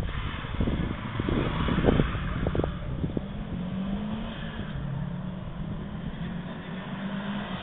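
Subaru Impreza's flat-four engine running on a timed autocross run, its note rising and falling as the car is driven through the course. A few thumps in the first three seconds.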